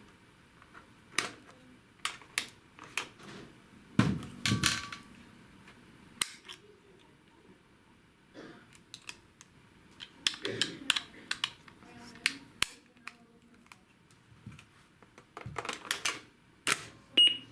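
Scattered plastic clicks and knocks of a 9V battery and its compartment being handled on a Defibtech Lifeline AED, with a short high beep from the AED near the end.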